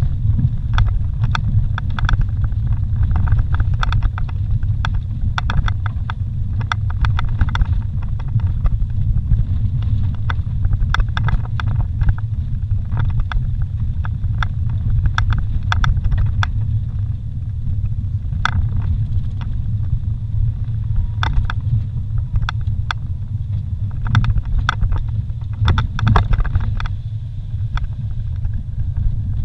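A vehicle driving over a rough dirt forest road, heard from inside the cabin. There is a steady low rumble from the engine and tyres, with frequent short rattles and knocks as it jolts over the bumpy surface.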